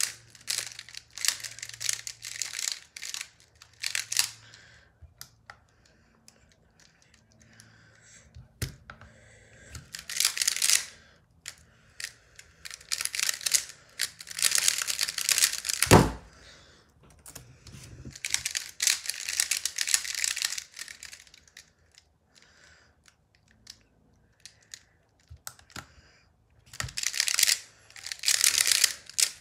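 A Square-1 puzzle being turned at speed: bursts of rapid plastic clacking as the layers are twisted and the middle slice flipped, with quiet pauses between bursts. A single loud thump comes about halfway through.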